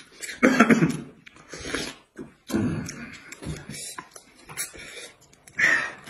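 People slurping and eating noodles in soup: loud, wet mouth noises in short bursts, about half a second in, again around two and a half seconds in, and near the end.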